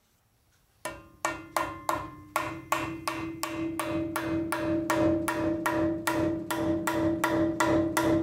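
Hammer blows, about three a second from about a second in, each leaving a ringing metallic tone. A new, silicone-coated trailing-arm bushing is being driven into its mount on the rear axle, a tight fit that takes repeated strikes.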